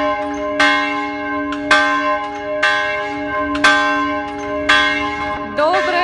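A single church bell tolling, struck about once a second with the same pitch each time, each stroke ringing on under the next. A voice breaks in briefly near the end.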